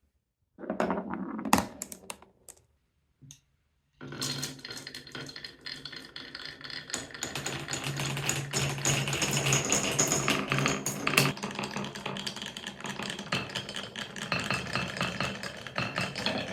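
Marbles rolling and clattering down a Cuboro wooden block marble run. A short run of clicks comes about half a second in, then from about four seconds a continuous dense rattle of many quick clicks as the balls roll down the wooden stairs and wave slopes.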